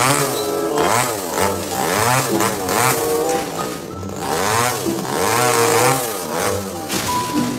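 Chainsaw engine revving up and down in repeated surges as it cuts into a tree branch.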